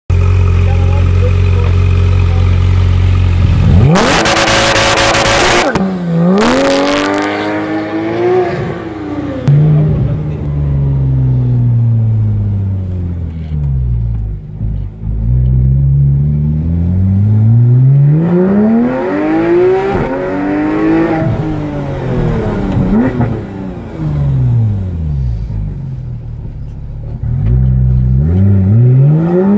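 Porsche 991 GT3's naturally aspirated flat-six idling steadily, then revved hard twice, about four and six seconds in. Then, heard inside the cabin, the engine note climbs and falls again and again as the car accelerates and slows.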